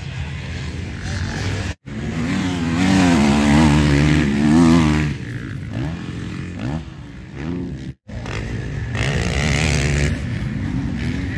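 Motocross bikes racing on a dirt track, their engines revving up and down as they pass, loudest a couple of seconds in. The sound cuts out abruptly twice for a moment.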